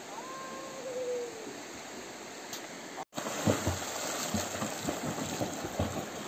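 River water running, with a brief whistle-like tone near the start. After a short break about three seconds in, a swimmer's kicks splash the water loudly and irregularly.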